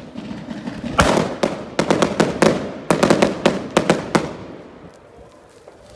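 Firecrackers going off in a bonfire: a loud bang about a second in, then rapid irregular strings of sharp cracks until about four seconds, dying away after that.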